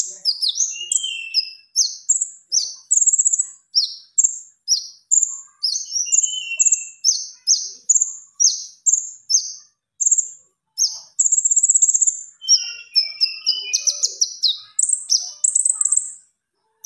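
Konin songbird singing a fast run of short, high chirping notes, about two a second, broken by a couple of longer buzzy trills; the loud 'dacok' song kept by bird keepers as a master recording.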